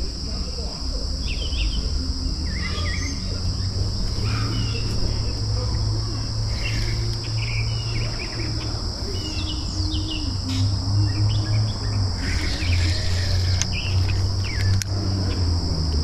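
A steady, high-pitched insect chorus, with scattered bird chirps and a low steady rumble underneath.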